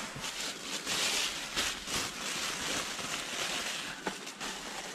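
Continuous rustling and crinkling of packaging being rummaged through by hand, with many small crackles.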